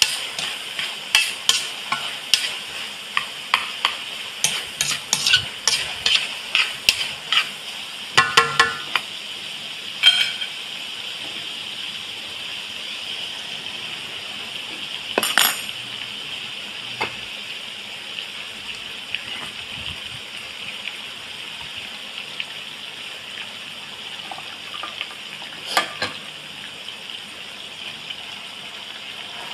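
Minced meat sizzling steadily in a stainless steel wok while a utensil scrapes and knocks against the pan about twice a second for the first ten seconds. There is a ringing metal clink about eight seconds in. After that the sizzle goes on alone, broken by two single knocks.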